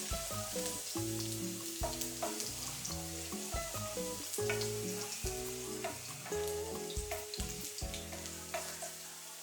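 Food frying in a pan: a steady sizzle and crackle, with scattered small clicks of stirring.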